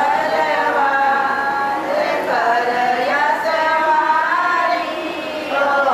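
Female singing: a melody carried in long held notes that slide from one pitch to the next, at a steady level.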